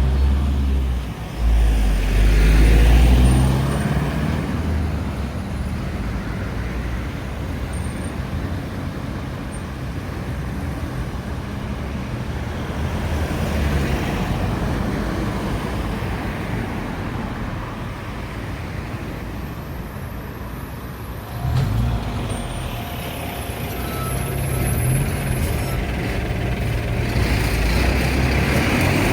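Road traffic at a junction: cars and heavy trucks passing and idling. Low engine rumble and tyre noise swell as vehicles go by, loudest a couple of seconds in and again over the last third.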